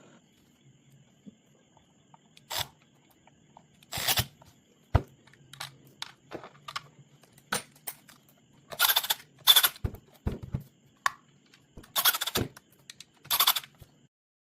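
Handling noise from working on a power-tool battery pack: scattered sharp clicks and knocks with several short scraping or tearing rasps, the loudest about two-thirds of the way through.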